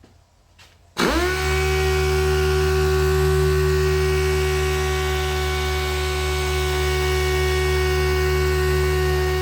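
A handheld power tool of the kind used to machine-sand and buff car paint switches on about a second in. Its motor spins up quickly, then runs with a steady whine.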